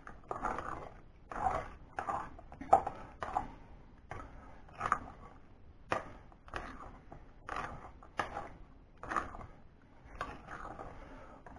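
Metal spoon stirring and folding thick rice pudding with whipped cream in a glass bowl: an uneven series of soft, wet scraping strokes, one or two a second.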